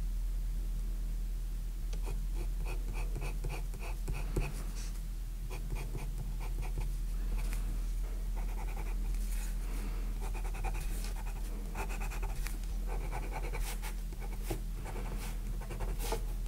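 Watercolour pencil (Faber-Castell Art Grip Aquarelle) scratching on drawing paper in quick short strokes, several a second, starting about two seconds in. A steady low hum lies underneath.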